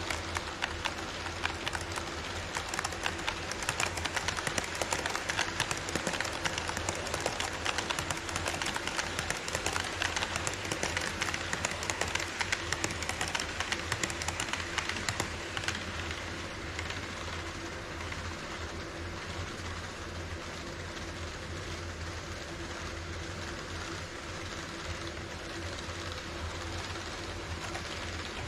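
HO scale model trains running over KATO Unitrack and a truss bridge: a rapid clicking clatter of wheels on the track over a steady low hum. The clatter is busiest in the first half and eases off after about sixteen seconds.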